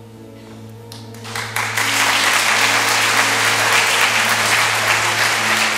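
Audience applause: a few scattered claps about a second in, swelling within half a second into steady full applause, over soft instrumental music that keeps sounding underneath.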